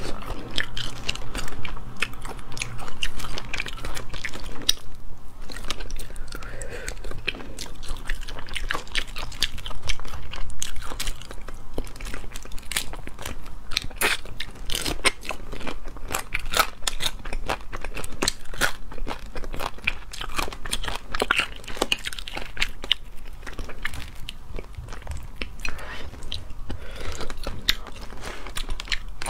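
Close-miked biting and chewing of cooked crayfish, with many sharp clicks and crackles as shell and meat are bitten, over a faint steady low hum.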